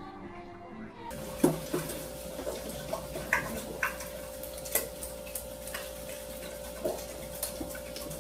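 A spoon clicking and scraping against a small cup in irregular taps, over a steady hum.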